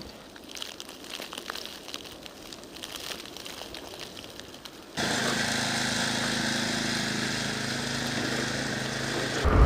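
Faint crackling hiss, then, suddenly about five seconds in, an engine running steadily.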